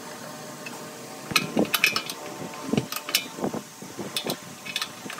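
Adjustable wrench clinking and knocking against the nut and bolt of a fuel tank's mounting bracket as it is worked on and tightened. A run of irregular metallic clicks and knocks starts about a second in and stops shortly before the end.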